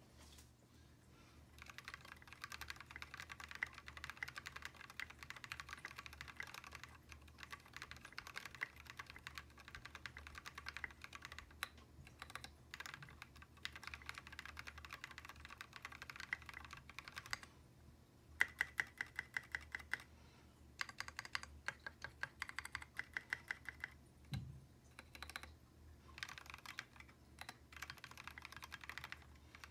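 Typing on a mechanical keyboard with Cherry MX linear switches: a quick, steady stream of keystrokes with a few short pauses. In the second half there are two runs of rapid, evenly spaced taps.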